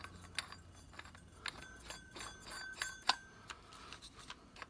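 Faint metal clicks and clinks as a steel hole saw is fitted onto its arbor in a cordless drill's chuck, with a few short light metallic rings around the middle.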